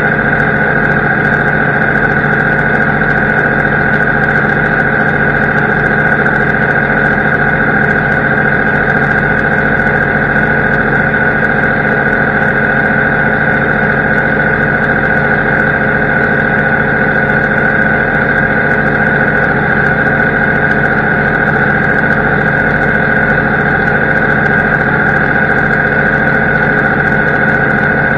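Farm machinery engine running at a steady speed: a constant drone with a steady whine on top and no change in pitch or load.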